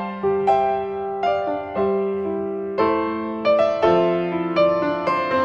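Background music played on piano: notes struck one after another in a slow melody over held chords.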